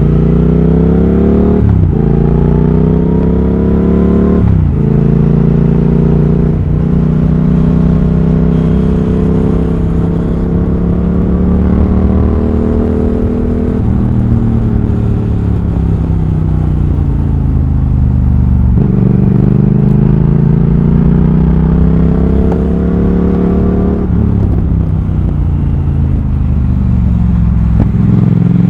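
Triumph Thruxton RS parallel-twin engine through a British Customs GP slip-on exhaust with X-pipe, heard onboard while riding. It revs up and drops sharply in pitch three times in the first seven seconds as it is shifted up through the gears, then climbs slowly. Around the middle it falls away for several seconds, pulls up again, and has one more sharp gear-change drop near the end.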